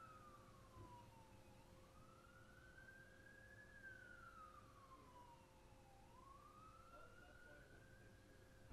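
Faint siren in a slow wail, its pitch sweeping up and down about every four seconds, a little over two cycles in all.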